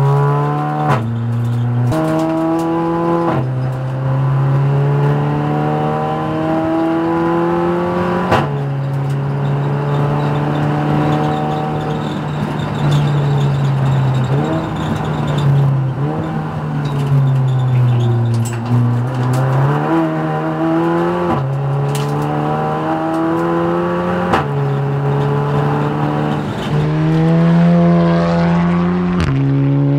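Audi TT race car's engine at full throttle on track, heard from inside the cabin. Its pitch climbs through each gear and drops suddenly at every upshift, and it falls and rises again midway as the car brakes and downshifts for a corner and pulls out of it. Near the end the car is heard from trackside as it passes.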